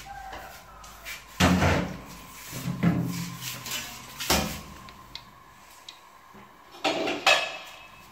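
Several separate sharp knocks and clatters of kitchen utensils being handled around a pressure cooker and a steel ladle. There is one about a second and a half in, more at about three and four seconds, and a quick pair near the end.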